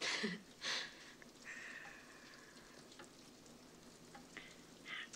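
Faint steady crackling hiss, with a few short breathy sounds: two at the very start, a longer one at about two seconds, and another near the end.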